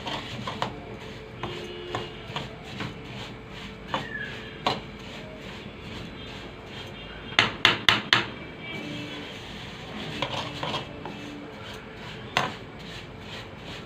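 A spoon scraping and clinking against a cooking pot while vermicelli is stirred and browned in ghee and oil. About halfway through come four quick loud knocks, and another single knock near the end.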